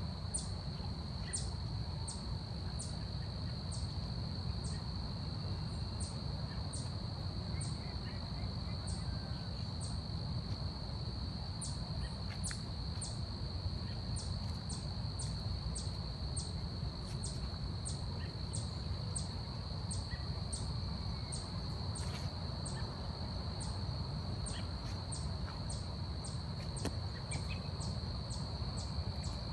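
Forest insects: a steady high-pitched drone with a sharp, higher chirp repeating roughly twice a second, over a low steady rumble, with faint bird calls now and then.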